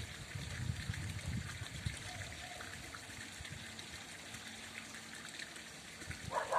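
Water trickling steadily, with a low rumble in the first two seconds and a short animal call near the end.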